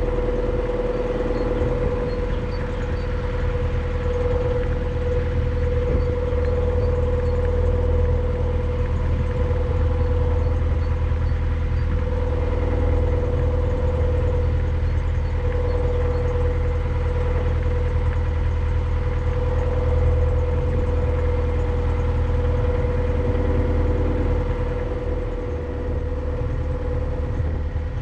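Narrowboat's diesel engine running steadily at low cruising revs, a deep hum with a steady higher whine over it, easing off slightly near the end.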